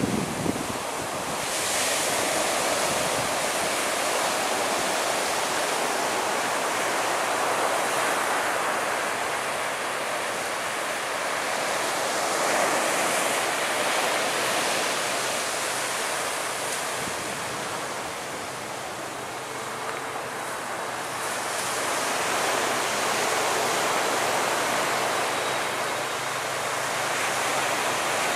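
Ocean surf washing onto the shore, a steady rush of waves that swells and eases every several seconds.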